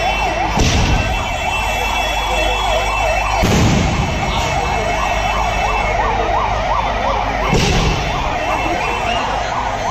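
An emergency vehicle's siren yelps, rising and falling rapidly a few times a second without a break. Aerial firework shells boom three times over it, each blast followed by a short rumble.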